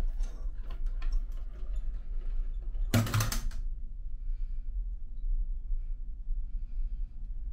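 A run of light clicks, then a brief, louder clatter about three seconds in, over a steady low hum.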